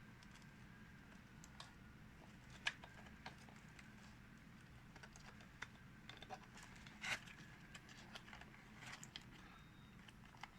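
Faint, irregular light clicks and taps of small parts being handled, with two sharper clicks, about a third of the way in and a little past the middle, over faint room hum.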